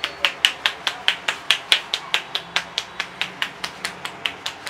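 Hands tapping rapidly on a head during a barber's head massage: sharp, evenly spaced claps at about four to five a second.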